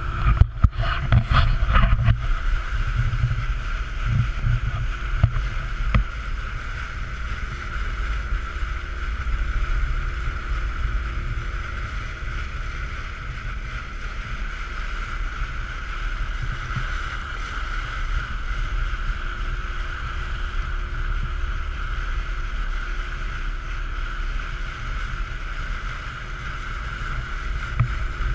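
Outboard motor pushing an inflatable boat at speed, a steady drone, with wind buffeting the microphone and water rushing past the hull. There are a few knocks in the first two seconds.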